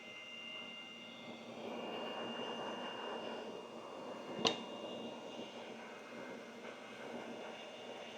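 Hot-air rework station blowing steadily, a rushing airflow with a faint high whistle, heating the solder of the PS5 board's HDMI port. A single sharp click about halfway through.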